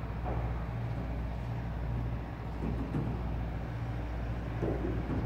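Steady low drone of an engine or machine running, unchanging throughout.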